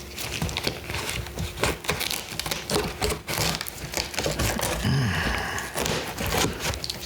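Packaging being handled while a boxed MIDI keyboard is unboxed: irregular crinkling and rustling with scattered clicks, and a brief low vocal noise about five seconds in.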